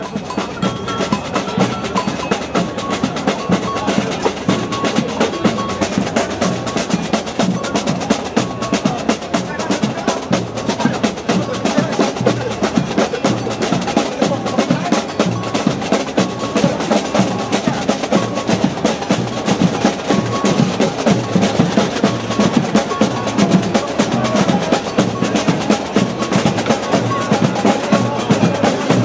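Street percussion band drumming: snare drums and wood blocks playing a fast, steady rhythm of dense strikes.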